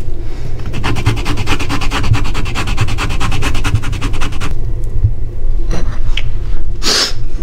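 Fresh wasabi being grated by hand: rapid, even rubbing strokes that stop about four and a half seconds in. A short noise follows near the end.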